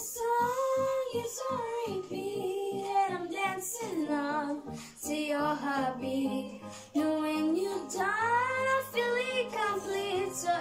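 A young boy singing a pop melody, holding some notes with a slight waver, with music behind him.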